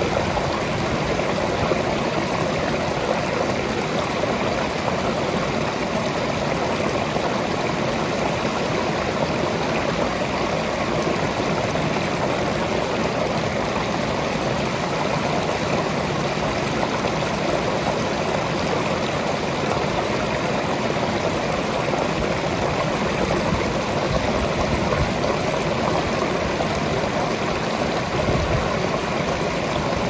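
Small creek waterfall pouring over rock and splashing into the pool below: a steady, even rush of water, with a brief low rumble near the end.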